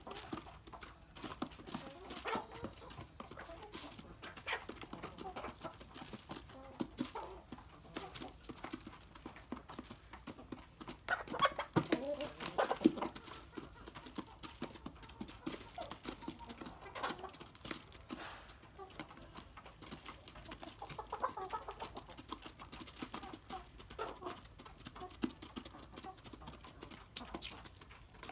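Chickens clucking while they peck grain from a plastic feed tray, with scattered short taps and scratches. A louder, busier stretch of calls comes about eleven to thirteen seconds in.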